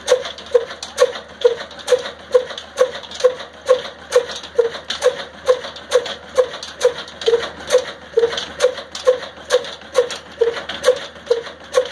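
Old single-cylinder horizontal 'desi' diesel engine of the Ruston Hornsby type, with a large flywheel, running steadily while belt-driving a chakki flour mill. Its exhaust beats come evenly, a little over two a second, each with a sharp clack.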